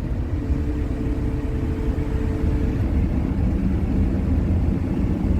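Cat 308E2 CR mid-size excavator's diesel engine running steadily, heard from inside the enclosed cab, with a faint steady hydraulic whine for about two seconds near the start as the front push blade is worked.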